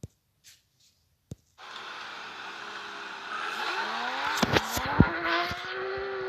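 Porsche 911 GT3 RS flat-six accelerating hard away, its engine note climbing steeply in pitch as it revs up, with several sharp cracks about halfway through. It starts after about a second and a half of near silence broken by two small clicks.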